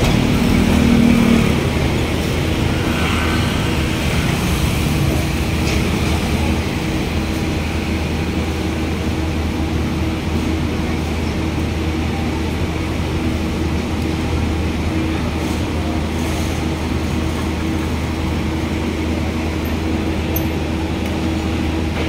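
Street traffic: a box truck's engine runs close by for the first second or so, then a steady low hum of road traffic.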